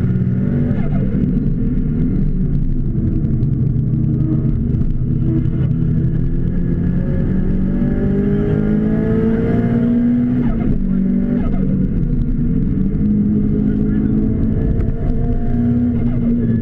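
A car's engine heard from inside the cabin while lapping a race circuit, pulling hard with its pitch climbing, then dropping sharply twice around ten and eleven and a half seconds in as it shifts gear, before holding a steady note.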